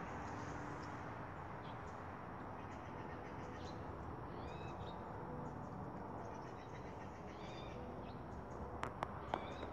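Steady outdoor background hiss with faint small-bird chirps, a cluster of short arcing calls about halfway through. A few sharp clicks near the end.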